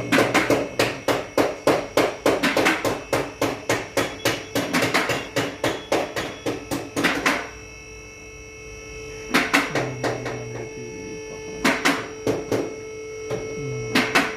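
Hammer striking metal in quick repeated blows, about four a second for some seven seconds, then shorter groups of blows after a pause, over a steady workshop hum.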